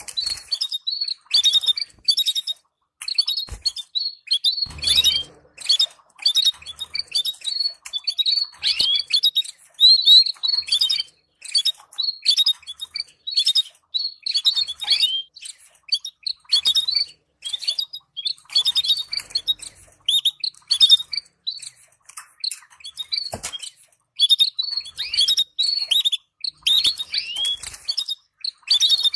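Canaries chirping and twittering: rapid clusters of short, high calls and quick downward-sweeping notes, broken by brief pauses.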